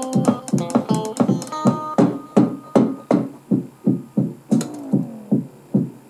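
Drum kit and electric guitar playing together. About two seconds in the guitar notes stop and the drums keep an even beat of roughly three strokes a second, with one pitch gliding down near the middle.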